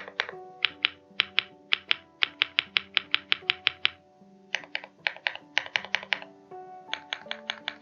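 Typing on a Monsgeek M2 mechanical keyboard with Hyacinth V2U switches and Akko pudding keycaps, modded with two layers of tape and PE foam: crisp, crackling keystrokes in quick runs of about five a second, with short pauses between runs. Background music plays underneath.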